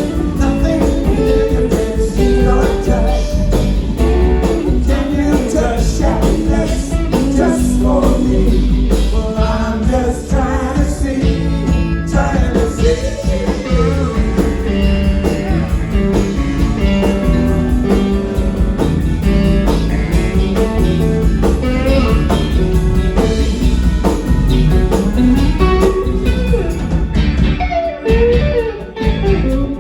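A live rock band playing a song, with a singer over guitar, bass and drums.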